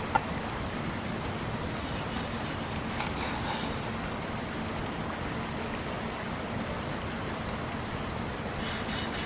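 A cleaver slicing through a seared ribeye steak on a wooden board, with crisp crunching cuts a couple of seconds in and again near the end, over a steady hiss.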